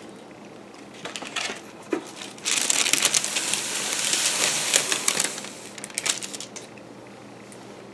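A thin plastic sheet crinkling as it is pulled and lifted from under a clay sculpture: a few small crackles, then a dense run of crinkling for about three seconds in the middle, then a few scattered crackles.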